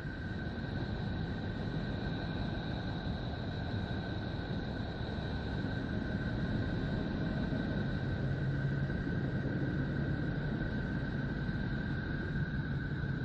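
Spacecraft recording of Neptune turned into audible sound: a steady rushing drone over a low rumble, with two held whistling tones, one high and one higher. A low hum grows stronger about two-thirds of the way through.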